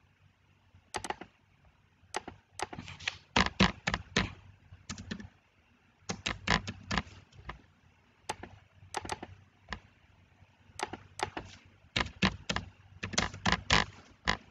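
Computer keyboard keys and mouse buttons clicking, in short bursts of quick taps separated by pauses.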